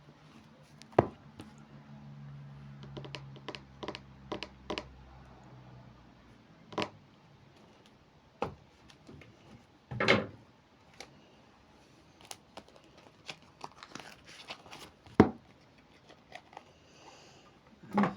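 Tarot cards being handled and shuffled: irregular sharp clicks and short rustles as the cards are riffled and tapped, with a faint low hum during the first few seconds.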